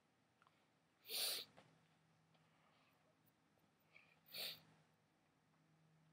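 Two short, sharp breaths through the nose, about three seconds apart, in an otherwise near-silent room.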